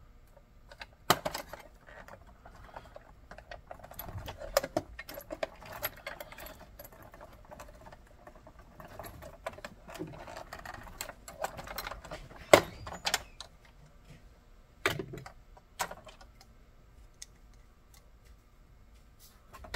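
Plastic parts of a Lionel Superliner passenger car clicking, rattling and scraping as it is worked apart by hand, with a handful of sharp clicks scattered through.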